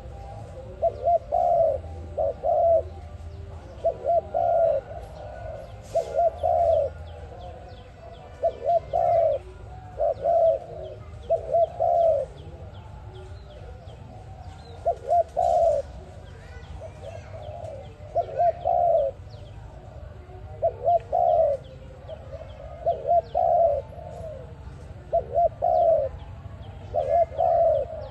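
A dove cooing over and over, each phrase a couple of short notes ending in a longer one, repeated roughly every two seconds. Small birds chirp faintly in the background.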